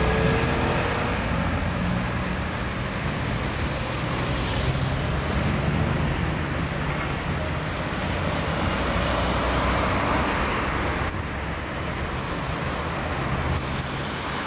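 City street traffic: a bus and cars passing, with a steady low engine hum. The background noise changes abruptly about eleven seconds in.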